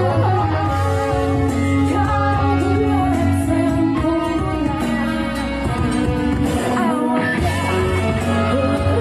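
Live rock band playing through a large outdoor PA: electric guitars and heavy bass under a female lead voice singing.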